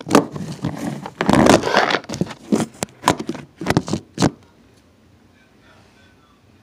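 Phone being handled close to its microphone: a string of knocks and rubbing for about four seconds, then it goes quiet.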